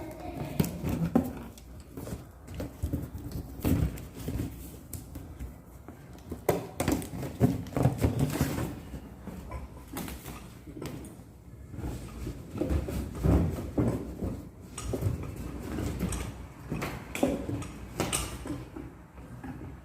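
Latex balloons being handled and fitted onto a balloon stand: rubbing with many scattered clicks and knocks.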